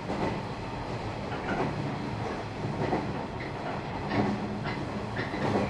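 Running sound inside a JR 113 series electric train's cab trailer car (KuHa 111) on the move: a steady rumble and low hum, with wheels clacking over rail joints at irregular intervals.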